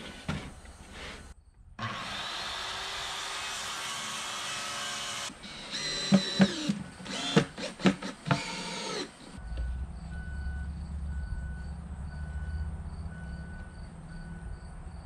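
Cordless drill driving screws into wood: one run of about three seconds, then several short bursts whose pitch rises and falls. After about nine seconds it gives way to a steady low hum.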